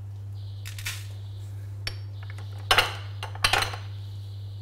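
Glass storage jars being handled and knocked on a counter: a couple of light clinks, then two louder sharp clatters a little under a second apart.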